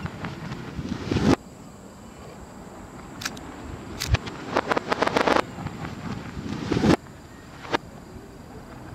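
Aerial firework shells played backwards: the echo of each boom swells up and then cuts off abruptly, twice, about a second in and near the end. A flurry of reversed crackling comes in between.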